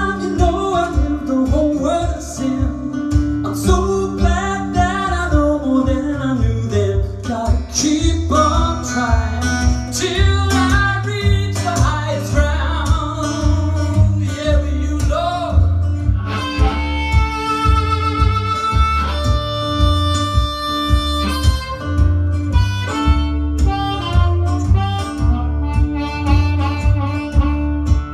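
Live acoustic blues: guitar and harmonica over a steady beat, the harmonica bending notes and holding long chords around the middle.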